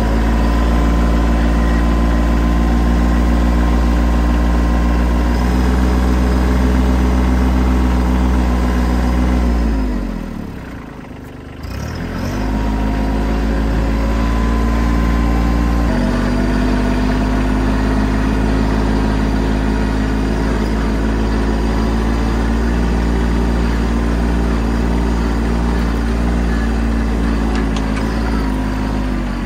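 Craftsman LT1500 riding lawn tractor's engine running steadily; about ten seconds in its speed and loudness drop briefly, then it picks back up and runs on.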